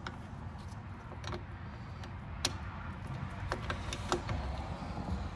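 Light metallic clicks and taps as a new rear drum-brake shoe and its hardware are worked into place against the backing plate of a Mitsubishi Mirage, a handful of small clicks with the sharpest about halfway through, over a low steady rumble.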